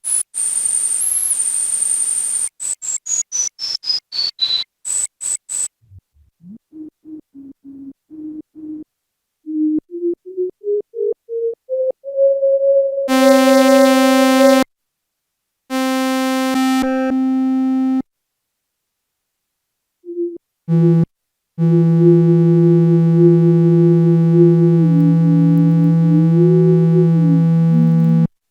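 Roland SH-01 Gaia synthesizer test notes, played while a patch is being programmed. A steady high tone gives way to a run of short blips stepping down in pitch, then short low notes climbing in pitch. Last come held notes rich in overtones, the longest sustained for several seconds with a small dip and bend in pitch near the end.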